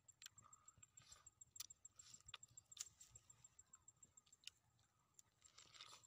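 Near silence with faint sounds of ripe pineapple flesh being pulled apart by hand and chewed: scattered soft clicks and short moist crunches.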